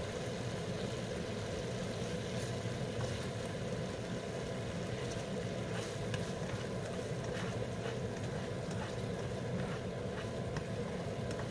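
Canned mackerel in tomato sauce bubbling steadily in a nonstick wok while it is stirred, with a few light scrapes of the spatula on the pan. The sauce is being cooked down until its liquid dries off.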